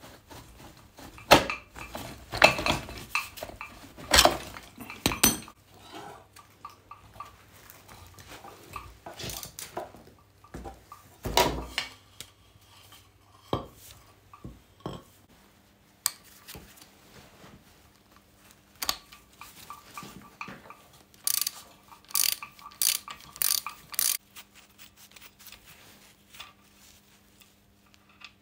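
Steel motorcycle parts and hand tools clinking and knocking irregularly while a front wheel, axle and fork are taken apart by hand, with a quick run of sharp metal clinks about three-quarters of the way through.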